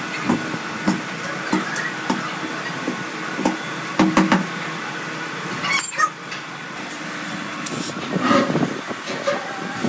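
Irregular knocks and thuds from tools on a tractor tyre and its steel rim as the tyre is levered and hammered onto the wheel. A steady workshop hum runs beneath.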